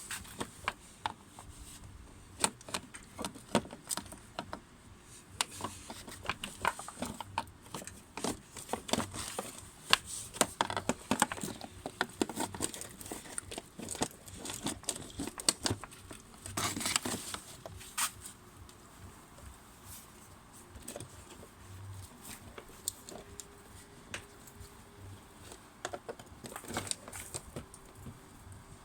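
Irregular clicks, rattles and crinkling of the plastic coolant distributor, pipes and clips of a Porsche Taycan being handled and worked loose by hand.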